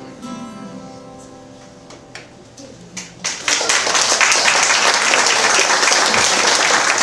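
The last held note of a song with acoustic guitar dies away. About three seconds in, an audience breaks into loud, steady applause.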